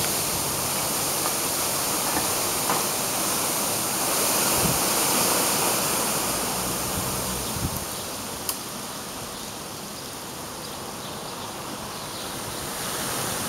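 Storm of heavy rain and strong wind: a steady rushing noise that swells about four seconds in and eases somewhat past the middle.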